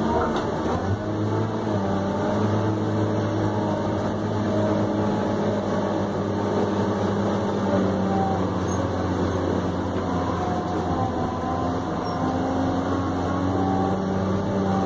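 New Holland RG140B motor grader's diesel engine running steadily as the grader travels and grades, heard from inside the cab, with only slight rises and falls in pitch.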